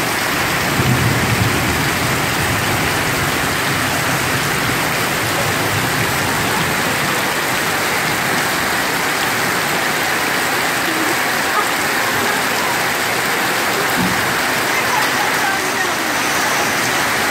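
Heavy rain pouring steadily onto a flooded street, a dense even hiss.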